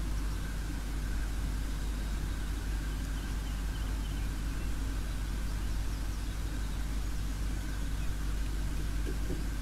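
Steady low rumble and hiss with a faint steady tone, unchanging throughout, with no distinct calls or knocks standing out.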